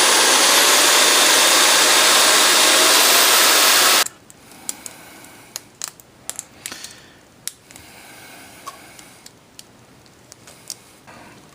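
Handheld power tool running steadily at full speed, drilling a hole, its pitch rising slightly before it stops suddenly about four seconds in; then light clicks and taps of parts being handled.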